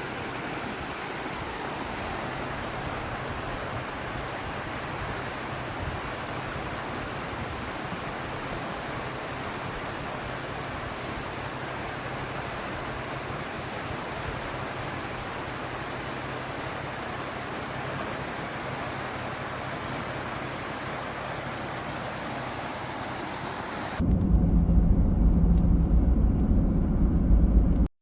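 Steady rushing noise with no distinct events. About four seconds before the end it gives way to a louder, deep, muffled rumble.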